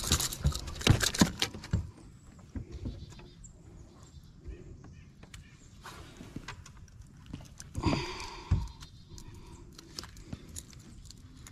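A freshly landed bass flopping and slapping on a boat deck: a quick run of loud thumps in the first two seconds. Then quieter scattered clicks and handling as the fish is held and unhooked from a square-bill crankbait.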